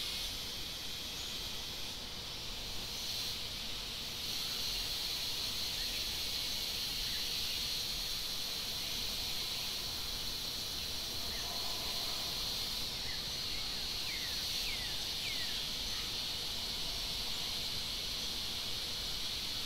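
Steady high-pitched drone of an insect chorus in the forest, with a few short, high, falling chirps about two-thirds of the way through.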